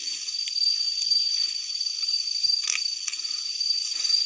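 A steady, high-pitched chorus of night insects, a continuous trilling drone. A sharp click about two-thirds of the way through.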